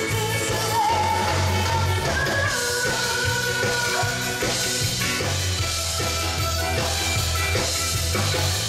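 Loud amplified pop song: a singer's voice over a steady bass and drum beat, performed on stage through a PA.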